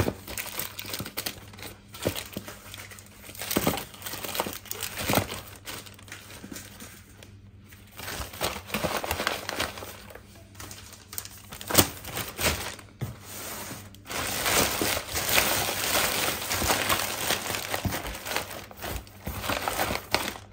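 Plastic bag and snack wrappers crinkling and rustling as packets are packed into a cardboard box, with a few sharp knocks; from about two-thirds of the way in the crinkling turns dense and continuous as the bag is folded over the contents.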